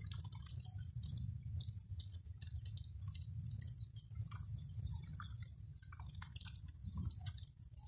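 A crowd of koi fry feeding at the water surface: many small, irregular wet pops, smacks and drips as they snap up pellets, over a steady low rumble.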